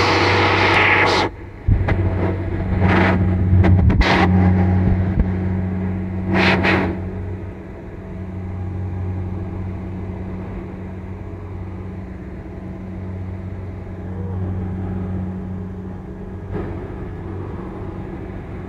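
Kubota DC60 combine harvester running steadily under load with a constant low engine hum, harvesting in wet paddy mud. Several loud, brief rushing bursts break over it in the first seven seconds, then it settles into even running.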